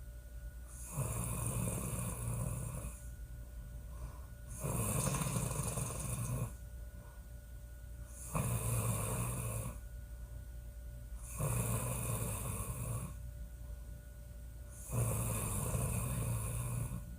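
A woman snoring loudly in a steady rhythm: five long snores, each lasting about two seconds and coming about every three and a half seconds, with quieter breathing between them.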